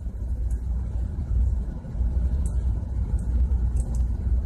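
Steady low rumble of ship's machinery running, with a few faint light clicks.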